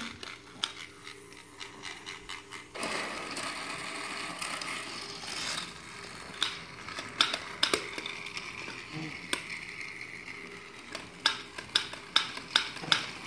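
Battery-powered toy Thomas engine: its small motor and plastic gears start whirring about three seconds in and run steadily as it drives around plastic track, with sharp plastic clicks and clacks, thickest near the end.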